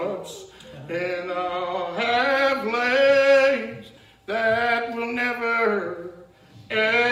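A man's unaccompanied chanted voice, in the sung style of Old Regular Baptist preaching. He holds long, wavering tones in phrases of one to two seconds, with short breaks for breath between them.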